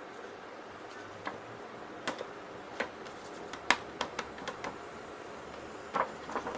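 Irregular sharp clicks and light knocks from a thin sheet panel being handled and moved, the loudest about halfway through and a quick cluster near the end, over a steady low hiss.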